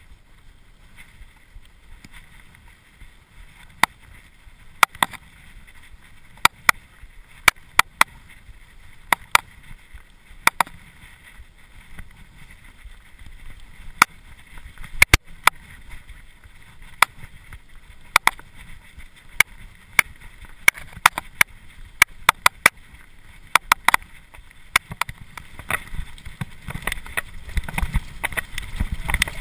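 Cube LTD Pro hardtail mountain bike rolling over a gravel track, with frequent irregular sharp clicks and rattles from the bike over bumps. The tyre rumble grows louder in the last few seconds as it speeds onto a rough dirt trail.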